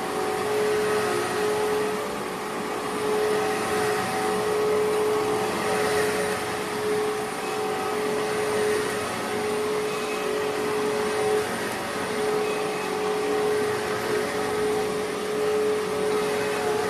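Vacuum cleaner running steadily: an even rushing hiss with a steady motor whine that wavers and drops out briefly now and then.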